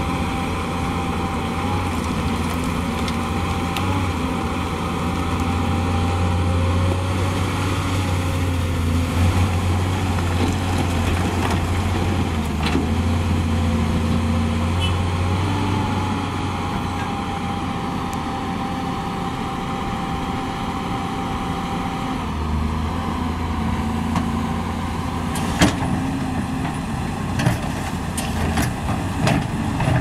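Hyundai 480LC-9S excavator's diesel engine running steadily under load, with a steady higher hydraulic whine above it as the bucket works through broken rock. In the last few seconds a handful of sharp knocks ring out as rock clatters from the bucket.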